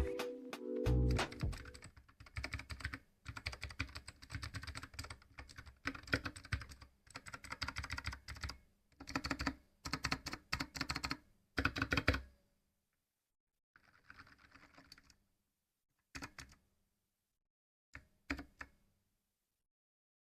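Typing on a Dierya DK61se 60% mechanical keyboard with red linear switches: rapid runs of keystroke clicks, then a few scattered presses, the last two close together, before it falls silent. Background music fades out at the start.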